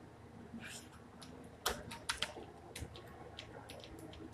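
Computer keyboard keys clicking as text is typed, irregular keystrokes with a few louder ones.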